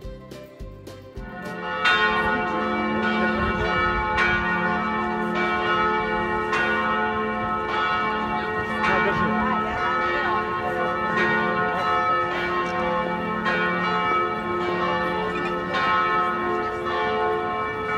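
Church bells ringing, each stroke about a second apart, with the tones of several bells overlapping and hanging on. The ringing begins about a second and a half in.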